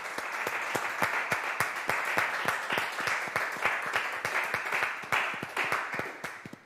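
Applause from a small group, with one person's hand claps close to a microphone standing out as sharp, regular claps. It dies away at the very end.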